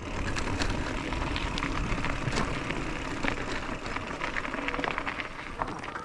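Mountain bike rolling along a gravel track: tyres crunching over gravel and the bike rattling and clicking over the bumps, over a steady low rumble.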